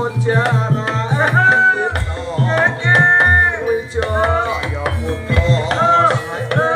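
Live jaranan music: kendang hand drums beating a fast, repeated pattern, with a wavering, pitch-bending melody line above.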